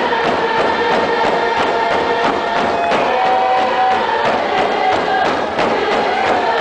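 A large group of Coast Salish singers chanting a song in unison over a steady beat of hand drums.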